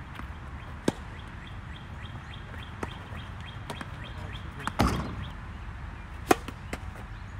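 Tennis balls struck by rackets: a few sharp pops seconds apart, the loudest being a serve near the end. A brief, louder, noisy burst about five seconds in, and birds chirping in the background.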